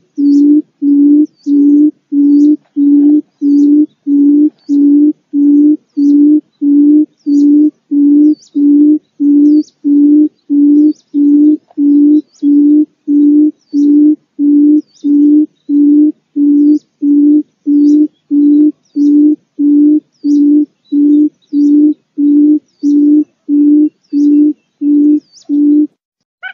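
A quail ('pugo') calling: one short, low note of steady pitch, repeated evenly about one and a half times a second without a break. Faint high chirps sit over it.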